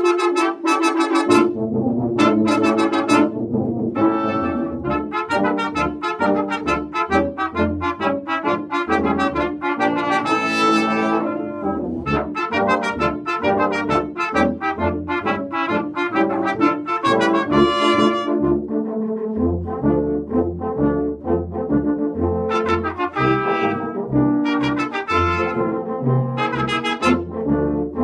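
Brass sextet of trumpets, French horn and tuba playing together, several parts at once, with the tuba's bass line entering about a second in and moving in short, detached notes under the upper voices.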